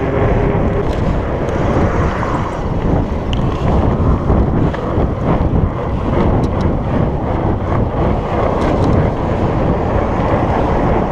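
Wind rushing over the microphone of a moving fat bike, over the rolling of its 4.8-inch Surly Knard tires on pavement: a steady, loud rush with a few light ticks.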